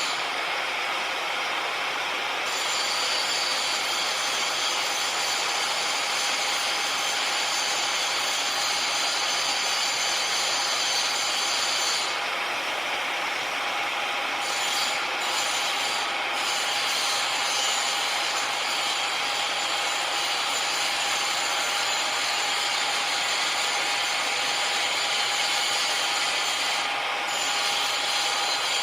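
Machinery workshop ambience: power machines running continuously with a steady whine over an even grinding, sawing-like noise. The highest hiss thins out briefly about twelve seconds in.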